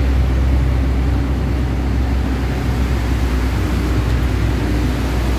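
Vehicle driving through a tunnel: a steady low engine drone under a constant rush of tyre and road noise on a wet road surface.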